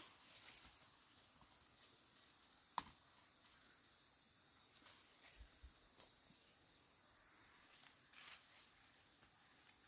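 Faint, steady high-pitched insect trilling, with one sharp click a little under three seconds in.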